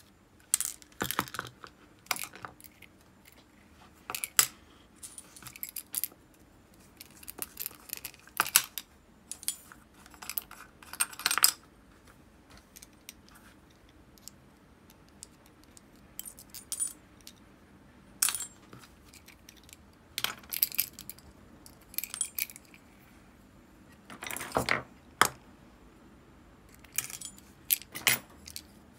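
Small metal parts of an Abu Garcia Ambassadeur 5500C baitcasting reel and a small screwdriver clicking and clinking against each other and the steel parts dishes as the reel is taken apart by hand. The taps come irregularly, singly and in short clusters, with quiet gaps between.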